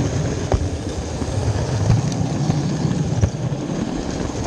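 Model train running on its track: a steady low rumble with a sharp click about every second and a half.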